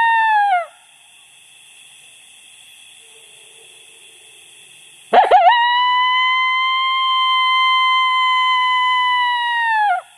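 Lone coyote howls blown on a diaphragm mouth call to locate coyotes. In the first second a howl ends with its pitch dropping away. About five seconds in a second howl starts with a quick broken warble, is held on one steady high note for nearly five seconds, then falls off at the end.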